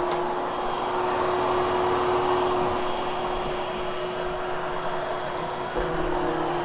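Vacuum cleaner running steadily with a constant hum as it grooms freshly cleaned carpet, setting the lifted pile; a lower hum joins in near the end.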